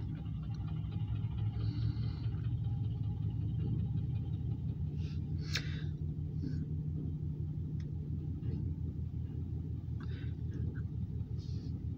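Steady low engine rumble with a hum, heard from inside a car while covered hopper cars roll slowly past, with a light tick about halfway through.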